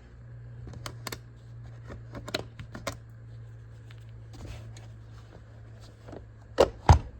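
Plastic tool packaging being handled and opened by hand: scattered light clicks and rustles, then two sharp, louder clicks a little before the end, over a steady low hum.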